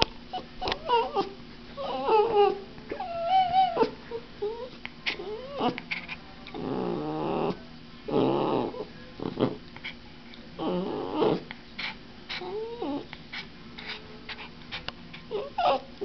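Cairn terrier puppy whining: high, wavering whines that slide up and down in pitch, a run of them in the first few seconds and more near the end. In between come lower, rougher sounds.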